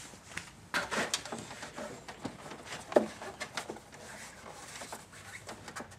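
Rustling and scattered light clicks and knocks of a handheld camera being moved with clothing brushing against it, with one sharper knock about three seconds in.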